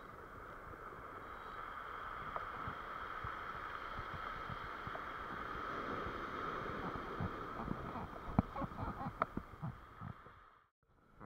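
Surf washing up a pebble beach, a steady rush of water, with a growing patter of clicks and knocks over the last few seconds as the wash moves the stones. The sound cuts out abruptly near the end.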